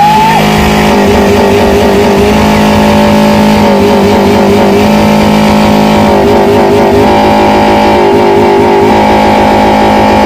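Background music: a loud, even track with a held low note and repeating phrases that change every second or two.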